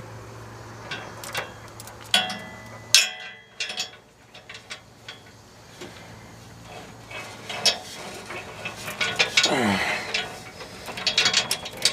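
Metal chain links clinking and rattling in irregular clicks as a chain is wrapped crisscross around a truck's exhaust pipe. A low steady hum cuts off about three seconds in.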